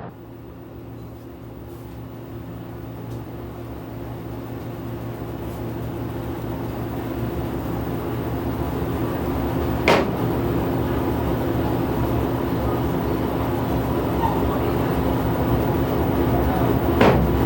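Samsung washing machine running with a steady hum of several tones, growing steadily louder, with a sharp knock about ten seconds in and another near the end: the washer is shaking abnormally.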